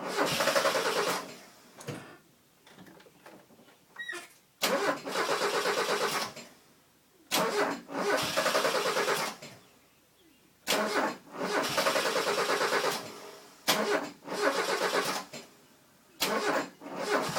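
Mazda 323 GTX's turbocharged 1.6-litre four-cylinder being cranked over by the starter in about six separate tries of roughly two seconds each, each opening with a sharp click, without the engine catching. It is a no-start after the engine was set to top dead centre.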